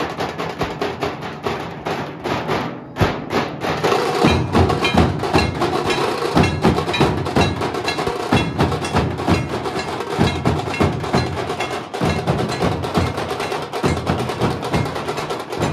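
A drum troupe plays a fast festival rhythm: rapid, sharp stick strokes over deeper drum beats, with a brief lull about three seconds in before the heavy beats pick up again.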